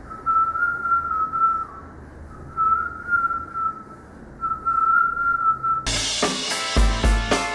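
A woman whistling a tune in three short phrases, each a single wavering note with short gaps between. About six seconds in, loud electronic music with a heavy drum beat cuts in abruptly.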